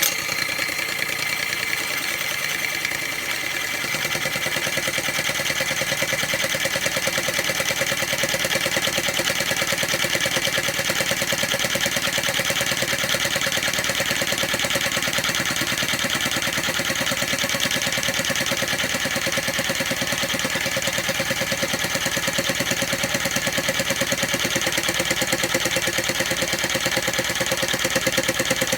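Homemade mini scroll saw running steadily: a 13 V geared DC motor turns a crank that drives the spring-steel saw arm up and down on a linear guide, giving a fast, even mechanical chatter. It fills a little more low end after about four seconds.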